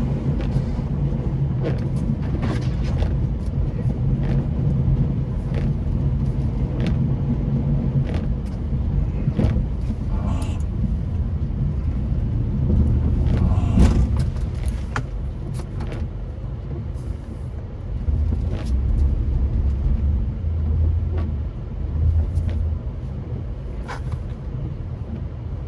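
Plow truck's engine running steadily while pushing deep drifted snow with a front-mounted plow, its note dropping lower for a while about two-thirds of the way through. Scattered knocks and clunks sound over the engine.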